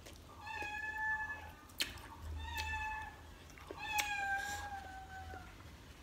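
House cat meowing three times, the last call the longest at about a second and a half; the owner puts the meowing down to the smell of the chicken. Two sharp clicks, one about two seconds in and one about four seconds in.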